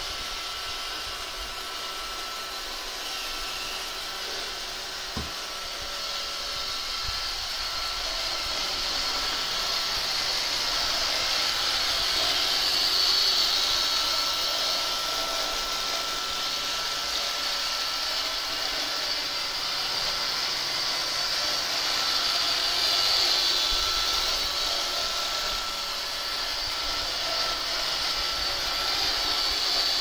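iRobot Roomba 570 robot vacuum cleaning carpet: a steady whir and hiss from its vacuum motor and brushes, with a faint steady whine, slowly growing louder and softer a few times as it moves about. A single small click sounds about five seconds in.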